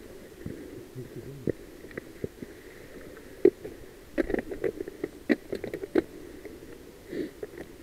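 Mountain bike riding over a gravel track: a steady low rumble with scattered sharp rattles and knocks from the bike, thickest about four to six seconds in.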